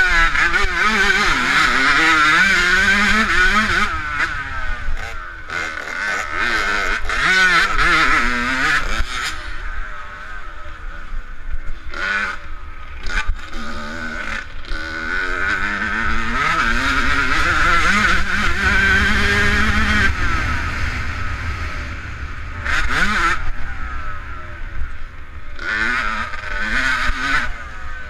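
Dirt bike engine heard from on board while racing, revving up and down repeatedly with the throttle and gear changes, easing off twice in the middle.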